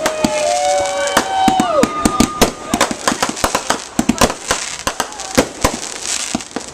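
Fireworks going off in a rapid, uneven string of bangs and crackles. In the first two seconds, long held tones around the middle of the range drop away in pitch as they end.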